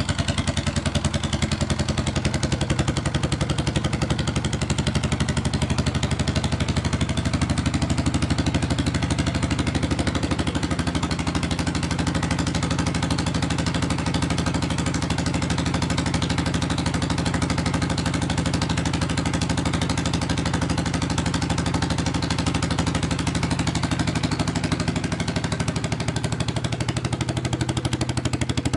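General Motors 1-71 single-cylinder two-stroke diesel engine running steadily at about quarter throttle, with a rapid, even firing beat.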